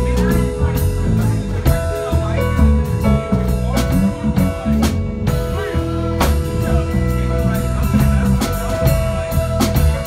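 Live rock band jamming: electric guitar, bass guitar, drum kit, keyboard and piano, with long held notes over a steady drum beat.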